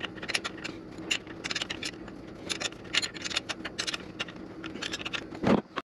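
Metal wrench clicking and scraping against a motor mounting bolt as it is worked loose, a string of irregular metallic clicks.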